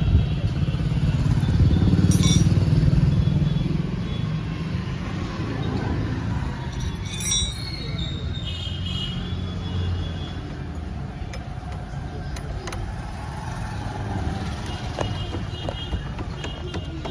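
Motor vehicle noise, like motorbikes and traffic going by, loudest a few seconds in and easing off, with a few light clicks.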